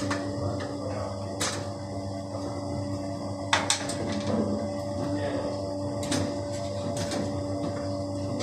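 Parts of a toilet cistern being handled during a repair: several sharp clicks and knocks, a pair close together near the middle, over a steady low hum.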